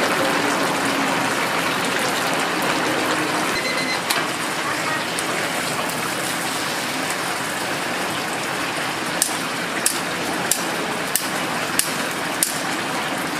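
Hot oil bubbling and sizzling steadily around whole chickens deep-frying in a commercial fryer. In the last few seconds come six sharp metallic clicks about 0.6 s apart, from metal tongs and a mesh strainer as a fried chicken is lifted out of the oil.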